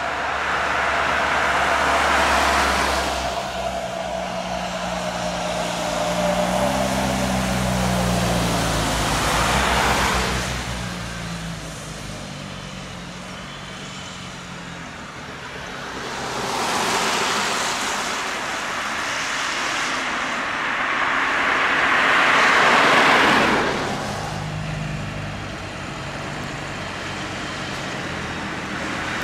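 Diesel fire-service vehicles, a MAN bus among them, driving past and pulling up: tyre and engine noise swells and fades about four times, with a low engine drone under it.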